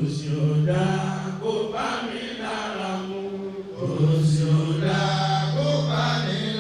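Chanting: two long, drawn-out vocal phrases held on a steady low pitch, the second beginning about four seconds in.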